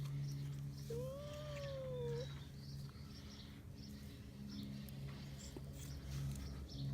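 A cat meowing once, about a second in: a single long meow that rises and then falls, over a steady low hum.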